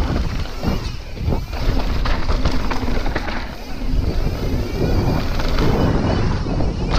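Wind rushing over the microphone of a handlebar-mounted camera, over the rumble of mountain bike tyres rolling on a dirt trail, with scattered small knocks and rattles from the bike.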